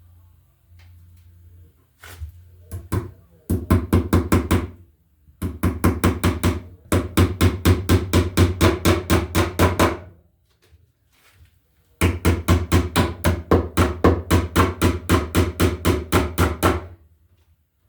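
Hammer driving nails with quick, rapid blows in three long runs of about five strikes a second, with short pauses between the runs.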